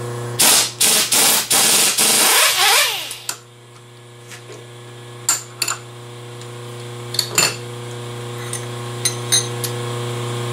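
Cutter change on a vertical milling machine. A cluster of loud metallic knocks and rattling comes in the first few seconds, then scattered light metal clinks as the tooling is handled, over a steady low hum.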